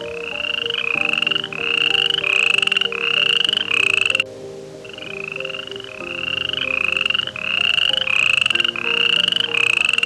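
Animal chirping call: short rising chirps repeated about two a second, in two runs with a pause about four seconds in. Soft background music plays underneath.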